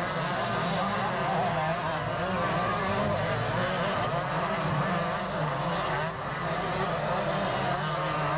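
Several 125 cc two-stroke motocross motorcycles racing, their engines revving up and down as the riders accelerate over the track, with several engines heard at once.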